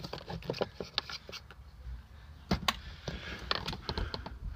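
Scattered clicks and knocks of hand work on a car's rear wheel and brake, with two sharper knocks about two and a half seconds in and a quick run of small clicks near the end.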